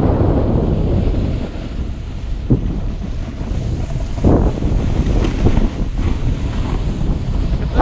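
Wind buffeting a GoPro camera's microphone while riding downhill on a snowboard, a steady low rumble, with short scrapes of a snowboard edge carving over the snow about two and a half and four seconds in.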